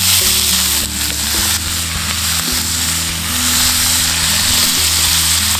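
Chicken thigh frying in hot sunflower oil and butter in a cast iron pan, sizzling in a steady, dense hiss just after being laid in.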